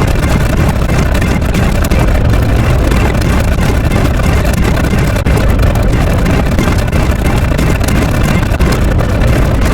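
A steady, loud, low rumble of engine-like noise with no clear beat or change in pitch.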